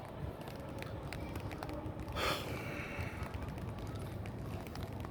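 Wind buffeting the microphone outdoors as a steady low rumble with faint ticks, with a brief louder rushing hiss about two seconds in.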